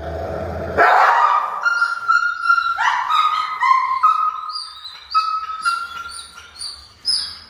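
Fear-aggressive mastiff mix crying out while it fights the leash: a harsh outburst about a second in, then a run of high, drawn-out whines and yelps, each held about half a second.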